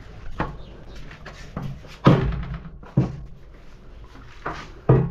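Banging on a door: several heavy thuds at uneven intervals, the loudest about two seconds in.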